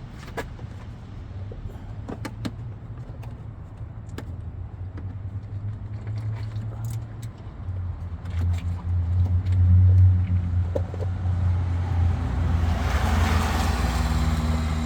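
A low steady rumble that swells about two-thirds of the way through, with a brief wider rush near the end. Over it come scattered small clicks and rattles of hands working zip ties and plastic parts in a car's engine bay.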